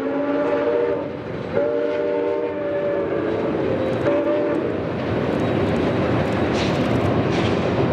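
Canadian Pacific 2816, a 4-6-4 Hudson steam locomotive, sounding its chime whistle: the end of one blast, a long blast, then a short one. After the whistle it is the steady rumble of the train rolling across a steel truss bridge.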